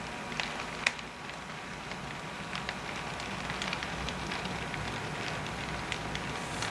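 Model freight train rolling slowly on the layout: irregular light clicks of the cars' wheels over rail joints and turnouts over a low motor hum, with one sharper click about a second in.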